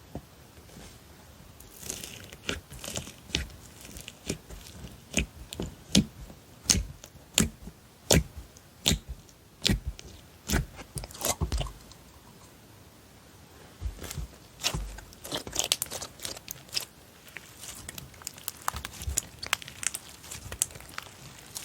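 Slime being pressed and played with by hand, giving sharp popping clicks as air pockets burst, about one every 0.7 s; after a short pause near the middle the clicks come faster and denser.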